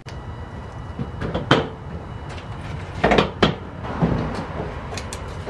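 A car's plastic front bumper cover being worked loose and pulled off by hand: a series of scattered clicks and knocks as its clips and fasteners let go, with the loudest knocks about a second and a half in and again around three seconds in.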